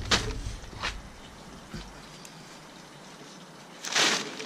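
Blue plastic tarp rustling and crinkling as it is spread and smoothed by hand: a few short rustles near the start and a louder crinkle about four seconds in.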